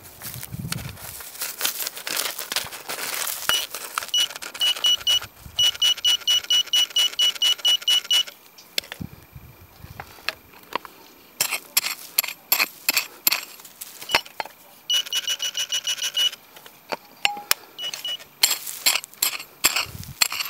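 Metal detector beeping as its coil sweeps stony, grassy ground: runs of short high beeps at about three a second, then a held tone and a few single beeps later, signals the detectorist puts down to ground full of iron. Irregular scraping and rustling from the sweeps sits underneath.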